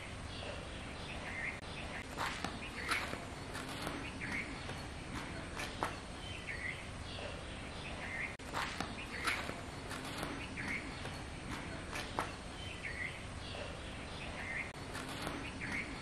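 Outdoor ambience: a bird chirping briefly about once a second, with scattered clicks and rustles of handling in grass and soil.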